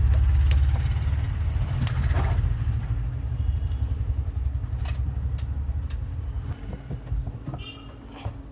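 A low rumble that fades over about six seconds, with a few light clicks and taps as copper winding wire is worked into the slots of a ceiling fan stator.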